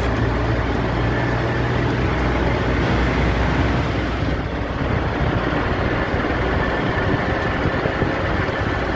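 Heavy truck diesel engine idling: a steady low hum under a haze of mechanical noise, the hum easing a little about halfway through.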